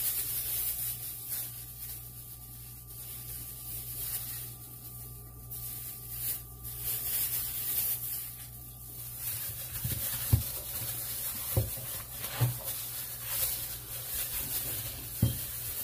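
Rustling, rubbing handling noise over a steady low hum, with a few soft knocks about ten to twelve seconds in and again near the end.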